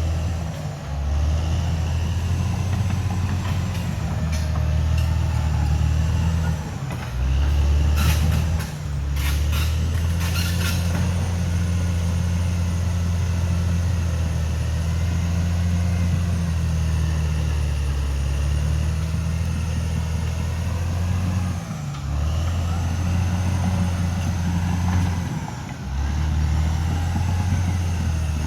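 Caterpillar D6R XL bulldozer's diesel engine running under varying load, dipping briefly several times, with a burst of sharp metallic clatter about eight to eleven seconds in.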